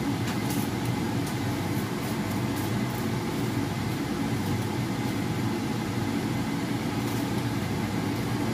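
A steady mechanical whir, like a fan running, holding at an even level throughout.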